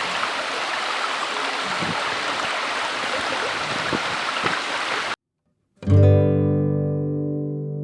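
Waterfall rushing steadily, which cuts off suddenly about five seconds in; after a brief silence, acoustic guitar background music starts.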